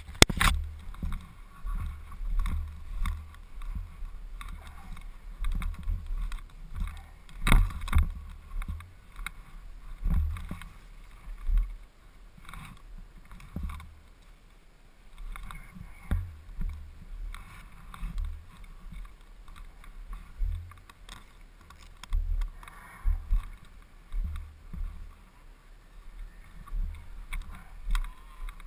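Snowmobile ride heard through a GoPro housing: an uneven low rumble and buffeting with scattered knocks as the sled runs over the snow trail.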